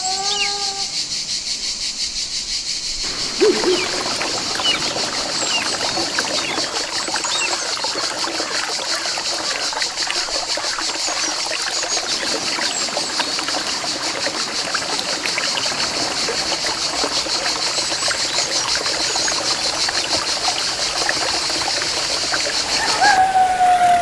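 Stream water splashing and trickling steadily. It comes in about three seconds in, with a few faint high chirps over it.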